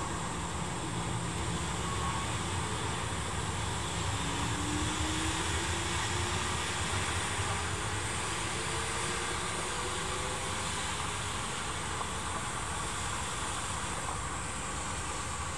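Tobu 6050 series electric train pulling away from the station and accelerating, a steady rumble with a faint motor whine that climbs slowly in pitch over several seconds.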